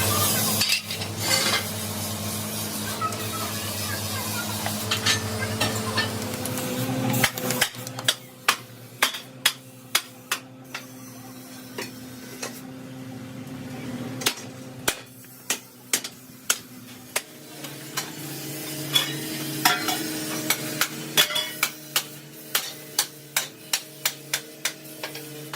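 Repeated sharp metallic knocks, about two or three a second, over a steady machine hum. The hum is louder for the first several seconds, and the knocks begin about eight seconds in.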